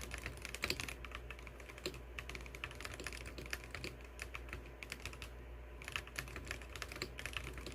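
Akko 5075B Plus mechanical keyboard with dye-sub keycaps being typed on: a fast, uneven stream of key clacks, with a short pause about five seconds in.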